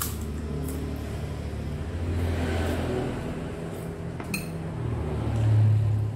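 A motor vehicle engine running close by, its pitch shifting and its level swelling twice, loudest near the end, with a sharp clink of a spoon against a ceramic bowl partway through.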